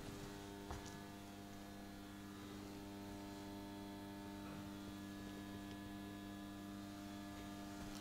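Faint, steady electrical mains hum with several overtones held at an unchanging pitch, with a single faint click about a second in.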